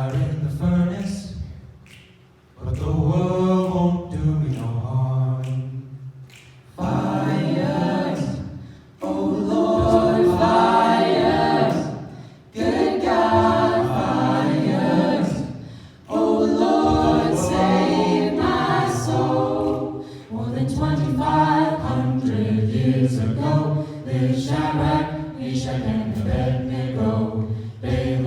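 Vocal octet singing a cappella in close harmony: sustained chords in phrases a few seconds long with short breaks between them, over a bass line, turning into shorter rhythmic notes in the second half.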